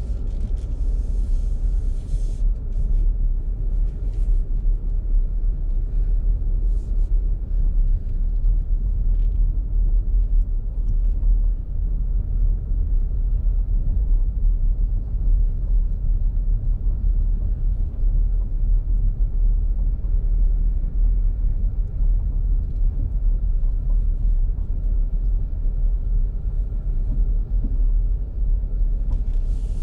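Car driving slowly on a gravel road, heard from inside the cabin: a steady low rumble of tyres on gravel and engine, with a few short hisses in the first several seconds.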